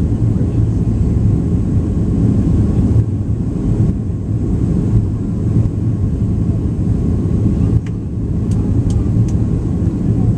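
Steady low rumble of a Boeing 737's engines and rushing air heard inside the passenger cabin as the jet descends to land.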